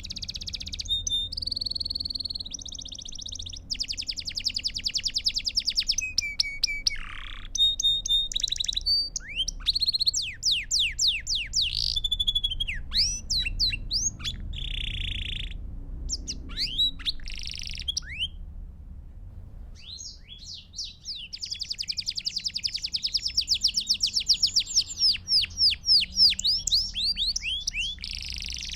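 Domestic canary (Belgian canary) singing: fast rolling trills alternating with runs of quick sweeping notes, a short pause about two-thirds of the way through, then a long, very rapid trill.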